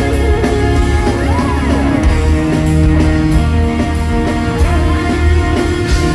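Progressive rock band playing live, heard from the crowd: drum kit under sustained melodic notes, with one note bending up and back down a little after one second.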